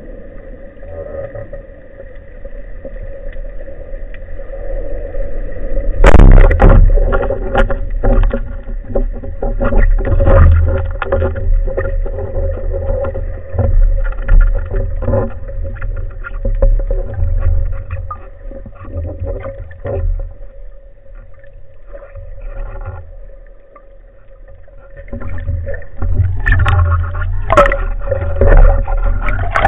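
Underwater sound picked up by a speargun-mounted camera. A steady hum with a held tone runs for the first six seconds. Then a sudden loud knock is followed by irregular knocks, rustles and rumbling water as the spearfisher handles the speargun and rises toward the surface.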